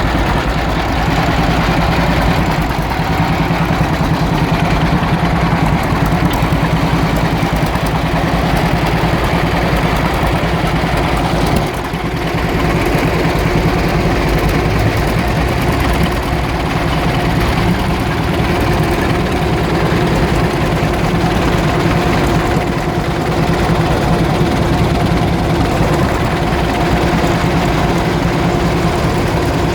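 Tractor engines running steadily, with a brief dip in loudness about twelve seconds in.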